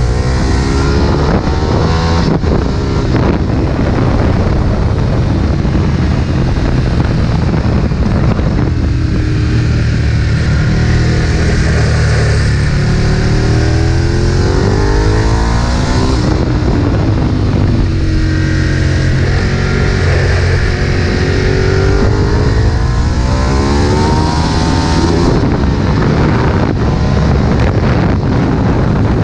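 Ducati 1098 sport bike's L-twin engine at full track pace, its revs climbing and dropping again and again through gear changes and braking, with wind rush underneath.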